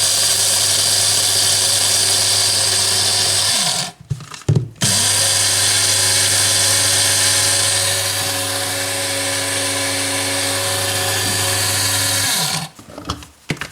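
Electric coffee grinder motor running loudly with a steady whine. It stops briefly about four seconds in, restarts, and cuts off near the end.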